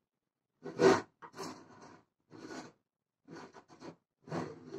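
Stiff white draping fabric rustling and crinkling as it is handled by hand, in about five short bursts, the loudest about a second in.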